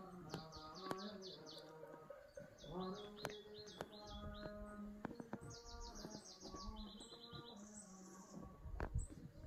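Small songbirds singing: short phrases of fast, high trills repeated one after another. Beneath them a low voice holds long, steady notes.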